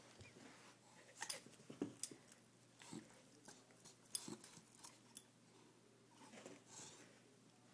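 English bulldog chewing and gnawing on a red toy bone, faint, with irregular short clicks of teeth on the toy.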